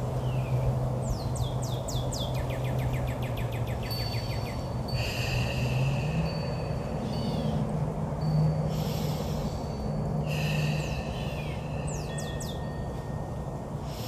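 Wild birds singing: rapid trills and quick down-slurred whistled notes, coming in several bouts, over a steady low hum that steps up in pitch about six seconds in.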